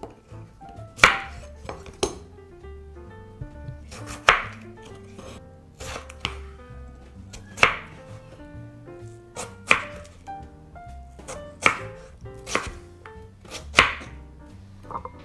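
Chef's knife cutting bacon, then slicing and dicing a potato on a wooden cutting board: sharp knocks of the blade on the board, irregularly spaced about every second or two.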